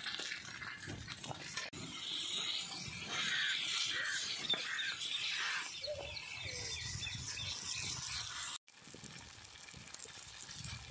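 Banana-leaf-wrapped fish sizzling in coconut oil on a hot iron dosa griddle over a wood fire, a steady hiss with some knocks from the spatula. The sound cuts out briefly about eight and a half seconds in, then comes back quieter.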